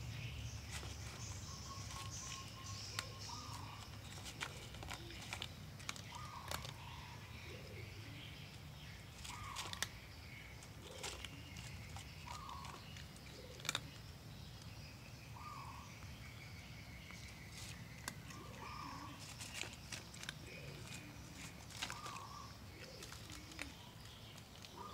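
Cat eating dry kibble, crunching with sharp irregular clicks. Birds call repeatedly in the background.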